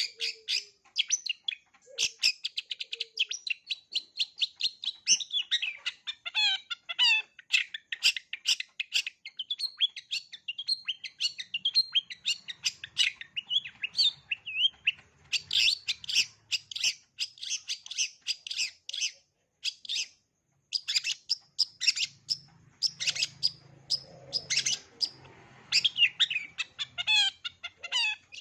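Long-tailed shrike (cendet) singing a fast, varied song of sharp chirps and short trills, packed with calls mimicked from other birds, with brief pauses between runs.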